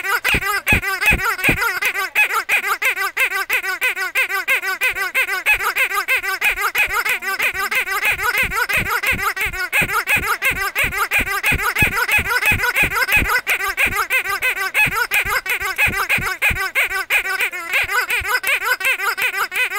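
Pink squeaky toy squeezed by hand over and over, giving a fast, unbroken run of squeaks that waver up and down in pitch.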